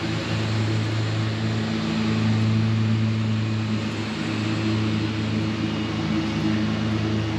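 A motor running steadily with a low hum over a hiss.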